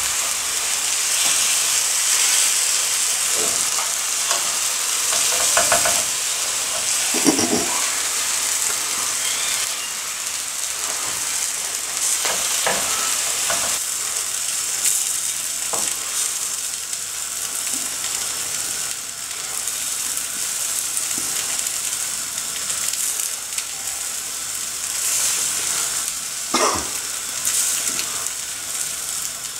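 Milk-and-rice pudding mixture sizzling steadily in a hot aluminium baklava tray, with a metal spatula now and then scraping and tapping as it spreads the mixture. The bottom layer is being scorched to make kazandibi.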